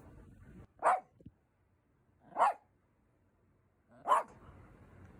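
Small papillon dog giving three short barks, about a second and a half apart.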